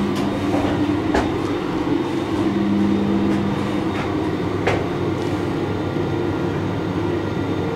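Passenger lift running as the car rises: a steady hum with a couple of faint held tones and a few light clicks from the mechanism.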